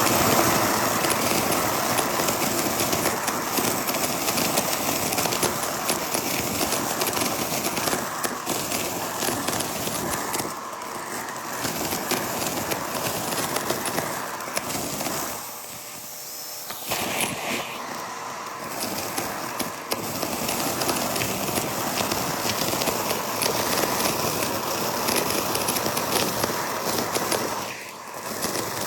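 Vacuum cleaner running and sucking up crunchy debris: a steady rush of suction with a dense stream of crackles and ticks as bits rattle up the nozzle. The sound drops and dulls briefly about halfway through.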